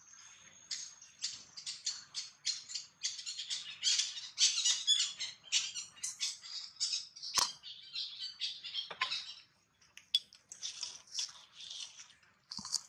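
Dry fallen leaves crackling and rustling in quick, irregular bursts as a macaque handles and picks through them, with a sharp snap about seven seconds in.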